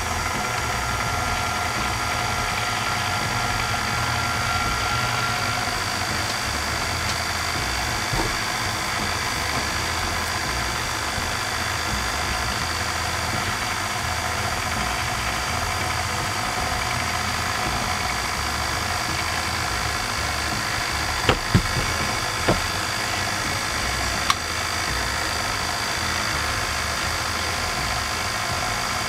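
KitchenAid stand mixer's motor running steadily, driving the pasta roller attachment as a sheet of dough is fed through it. A few sharp clicks about three quarters of the way in.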